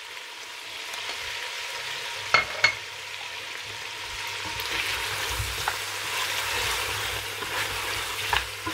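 Lamb and chicken pieces with yogurt sizzling in hot oil in a stainless steel pot, a steady frying hiss. Two sharp clicks come a little over two seconds in, and from about halfway a wooden spatula stirs and scrapes through the meat, with a few knocks against the pot near the end.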